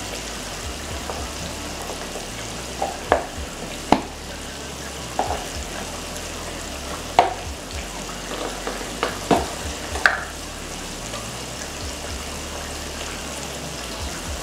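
Coated chicken pieces frying in a pan of hot oil, a steady sizzle. Short sharp knocks or clicks come now and then through the middle of it.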